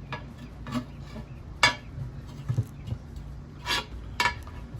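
Pry bar clinking and scraping against a steel wheel rim as a tire's bead is levered on by hand, with about half a dozen sharp metallic clinks.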